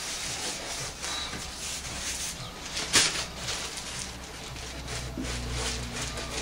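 Rustling and rubbing of foil-bubble Reflectix and Gorilla Tape as they are pressed and smoothed down by hand, with a sharp tap about three seconds in.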